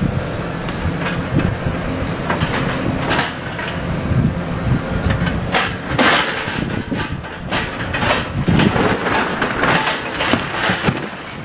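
Caterpillar 320D hydraulic excavator running, its diesel engine humming steadily while its grapple rips into a building's roof canopy: repeated crashes and clattering of breaking roofing and debris, the loudest about six seconds in and a run of them near the end.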